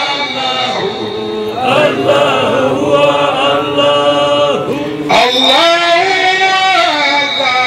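Male voice chanting a Sufi poem through a microphone and loudspeaker in long held lines. From about one to five seconds in, several voices sing together while he lowers the microphone, and his lead voice comes back strongly about five seconds in.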